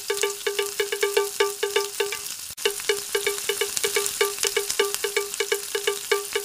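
Background music: a bright, chiming melody of quick, short repeated notes, about five a second, which cuts out for an instant about two and a half seconds in.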